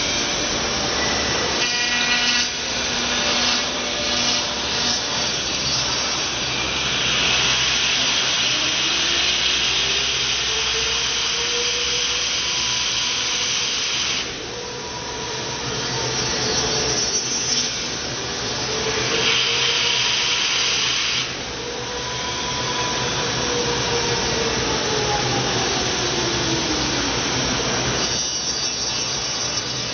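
Five-axis CNC router spindle milling a white foam block, a steady machining hiss and whine. A fainter tone slowly rises and falls twice in the middle as the cut goes on.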